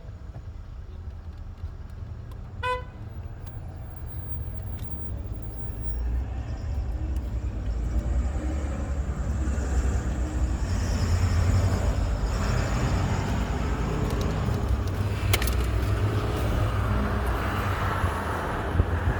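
A short beep about three seconds in, then a motor vehicle's engine and road noise building up and holding steady, with a sharp click near the end.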